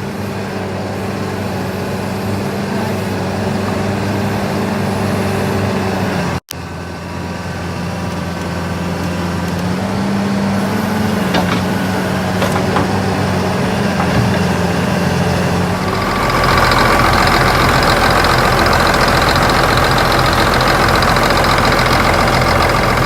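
Caterpillar 235C excavator's diesel engine idling steadily, with a momentary dropout about six seconds in. About sixteen seconds in, the engine sound becomes louder and fuller.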